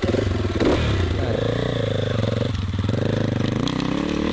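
KTM 450 EXC-F's single-cylinder four-stroke engine running steadily, with the revs rising and falling a little on the throttle.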